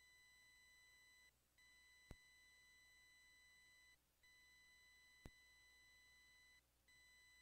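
Near silence, with a very faint steady electronic whine that drops out briefly three times, and two faint ticks about three seconds apart.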